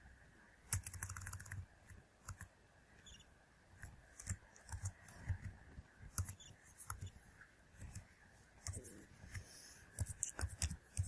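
Typing on a computer keyboard: irregular, quiet keystroke clicks, with a quick flurry of keys about a second in.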